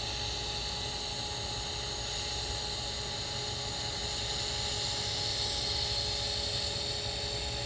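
TIG welding arc at 93 amps on carbon steel pipe, a steady hiss with a faint hum, as the torch cup is walked along the joint and filler wire is laid in.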